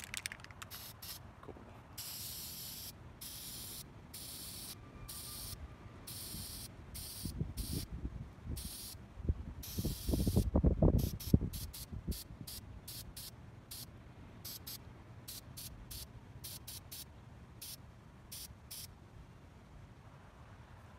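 Aerosol can of Krylon spray primer sprayed in a string of hissing bursts, each about a second long at first, then shorter, quicker puffs in the second half. A low rumble, the loudest sound, comes in about halfway through.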